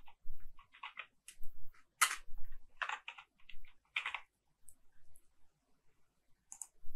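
Typing on a computer keyboard: a run of irregular keystrokes, which thins out past the middle, then a few more keys near the end.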